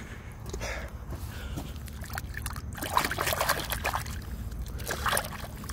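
Water splashing and sloshing as a hand rinses mud and clay off a fossil shark tooth. It gets louder and busier from about three seconds in.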